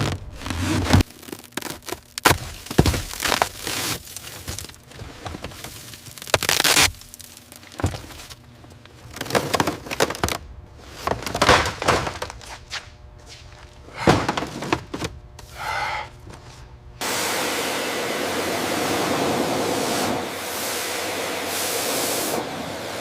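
Many sharp knocks, cracks and clatters, as of hard debris or metal parts being struck and broken off. About three-quarters of the way through, a steady rushing noise starts abruptly and runs on at an even level.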